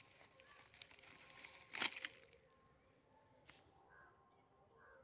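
Quiet outdoor background with a few faint, short high chirps. About two seconds in there is one brief, louder rustle and knock, from handling the uprooted turmeric plants and soil.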